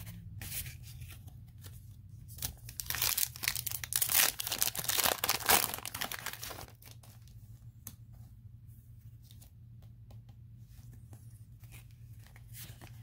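A foil trading-card booster pack being torn open and crinkled, loudest from about two to six seconds in, then quieter rustling and clicks as the cards are handled. A low steady hum sits underneath.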